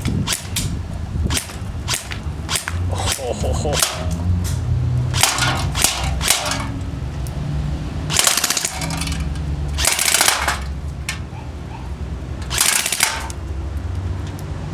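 ICS SIG 552 Commando airsoft electric gun firing: a string of single shots in the first few seconds, then several short full-auto bursts of about half a second to a second each.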